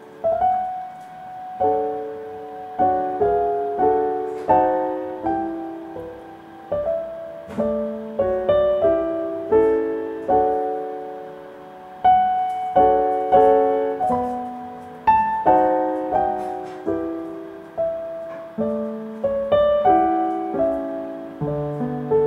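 Gentle solo piano background music, a slow melody of single struck notes and chords that ring and fade.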